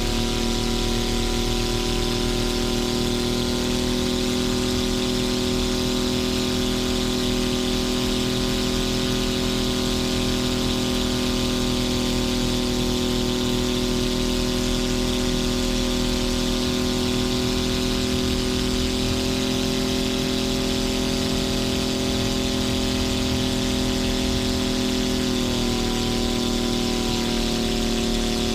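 Suzuki V6 engine with short stack exhausts in a Titan T-51 Mustang, running steadily at high power through the takeoff roll and climb-out: a steady growl on one constant pitch. About three seconds before the end the pitch steps slightly lower.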